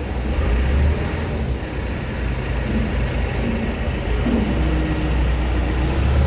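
Heavy diesel engine of site machinery running steadily with a deep low hum.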